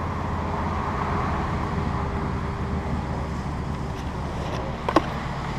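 Steady rumble of road vehicle noise, with a single short sharp click or squeak about five seconds in.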